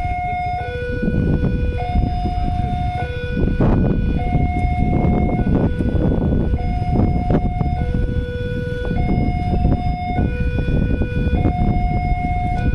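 Railway level-crossing warning alarm sounding a two-tone signal, a higher and a lower tone alternating, each held a little over a second, warning that a train is approaching while the barriers are down. Under it runs a steady low rumble.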